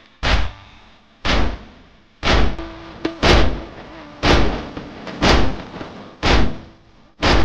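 Matam: chest-beating by mourners in unison, one loud beat about every second, keeping time for a noha.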